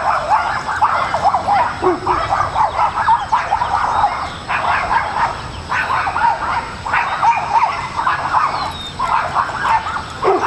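A dog whining and yipping almost without pause, a rapid run of short high cries sliding up and down with only brief breaks.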